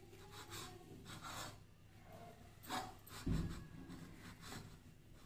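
Long knife sawing back and forth through a baked sponge cake, cutting off the domed top to level it: soft rasping strokes, with a dull low bump about three seconds in.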